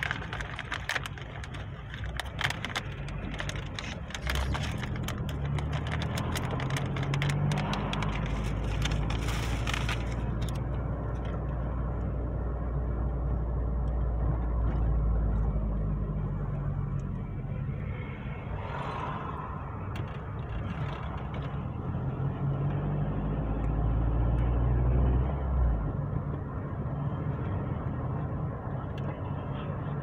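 Car driving, heard from inside the cabin: a steady engine hum and road rumble whose pitch rises and falls several times as the car speeds up and slows. Crackling clicks run through roughly the first ten seconds.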